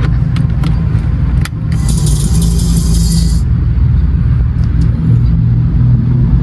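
Mitsubishi Eclipse with an aftermarket Invidia N1 cat-back exhaust running steadily with a low exhaust rumble. There are a few light clicks, and a brief hiss about two seconds in.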